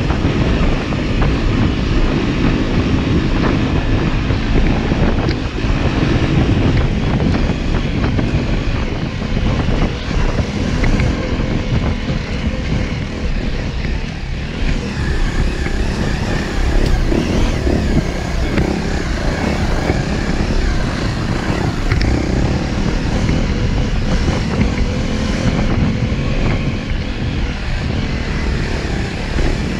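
Honda dual-sport dirt bike's single-cylinder engine running continuously while riding a rough dirt trail, heard close up from a camera mounted on the bike.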